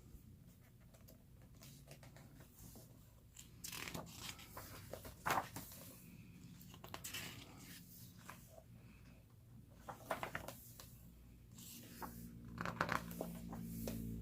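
Pages of a photobook being turned and handled: paper rustling in scattered short bursts, loudest about five, ten and thirteen seconds in.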